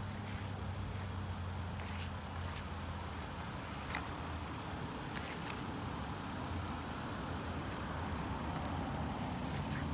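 Mercedes-Benz Sprinter 4x4 van's engine idling steadily with a low, even hum, and a few faint ticks scattered through it.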